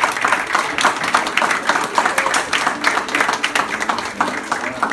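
A small crowd applauding, many hands clapping steadily, with faint voices underneath.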